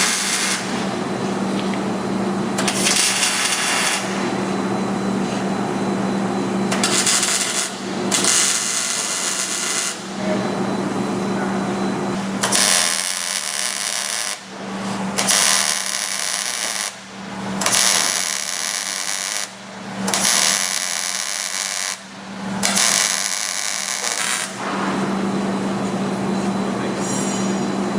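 MIG welder arc crackling and hissing as steel subframe connectors and torque box plates are tack-welded to a car's floor, over a steady hum. The arc stops and restarts every two to three seconds in the second half as each tack is laid.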